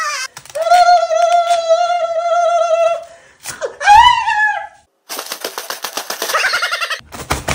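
A man's loud scream of pain, held on one pitch for about two and a half seconds, from tape ripped off his hairy leg. Then a shorter cry that rises and falls, and near the end a fast fluttering rattle.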